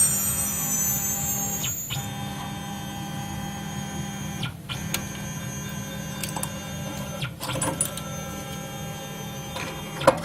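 CNC engraving router running: a steady machine hum and whine from the spindle and drive motors, with high tones settling in pitch over the first two seconds. The sound drops out briefly a few times, and light ticks and a sharp click come near the end.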